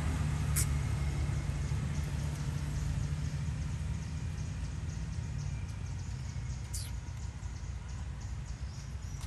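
A low, steady engine rumble that slowly grows fainter, with two brief high-pitched squeaks, one about half a second in and one about seven seconds in.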